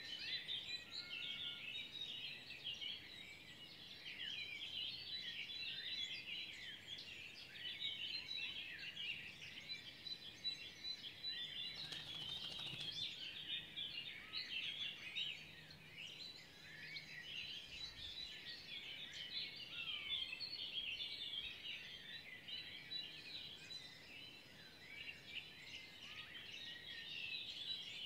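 Spring dawn chorus: many songbirds chirping and singing at once in a dense, continuous twittering.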